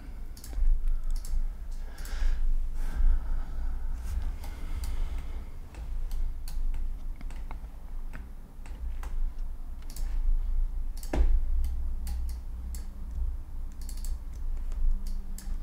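Irregular clicks of a computer mouse and keyboard, one louder click about eleven seconds in, over a steady low rumble.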